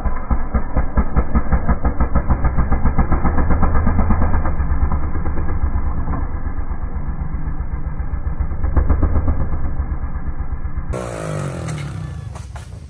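Trials motorcycle engine running in slow, even pulses while the bike tips off a boulder and tumbles among the rocks. It eases down after about nine seconds, and near the end gives way to a quieter outdoor background.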